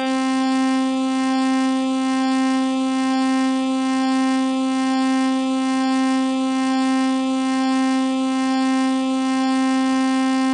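Steady emergency-alert alarm tone, a single low horn-like pitch with many overtones, held unbroken at a constant level.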